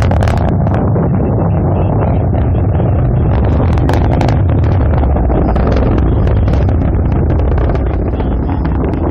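Atlas V rocket ascending on its main engine and three solid rocket boosters, heard from far off as a loud, steady low rumble with irregular crackling on top.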